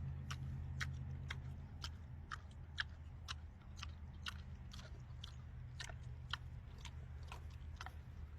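An animal chewing cake, its jaws clicking steadily about twice a second.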